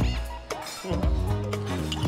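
Background music with a bass line and melody.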